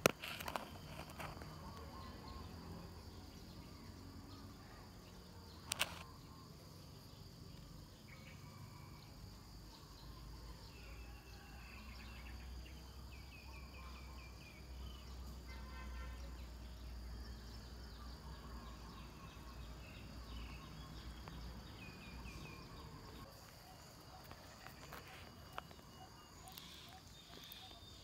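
Faint outdoor ambience: a steady high-pitched insect drone, with short chirps now and then and a single sharp click about six seconds in.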